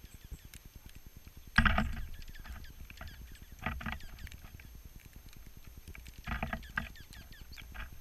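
A flock of small birds feeding on snow: three short flurries of fluttering wings, the loudest about one and a half seconds in, with faint high chips between them.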